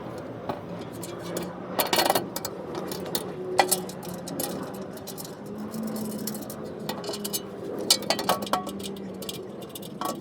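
Light metallic clinks and taps, scattered with a cluster about two seconds in and several more late on, some with a short ring: steel bolts being handled and threaded by hand into an aluminium skid plate.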